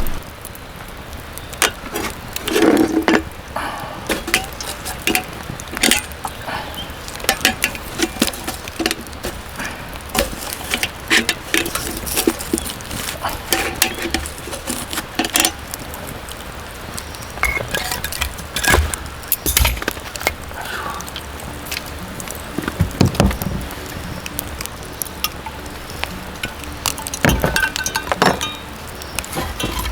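Irregular clinks and light knocks of small hard objects being handled, scattered through the whole stretch, with a steady background hiss.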